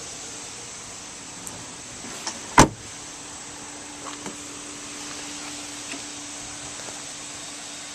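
A truck body panel slammed shut once, about two and a half seconds in, a single loud sharp slam with a lighter click just before it and a few faint clicks a little later, over a steady low hum.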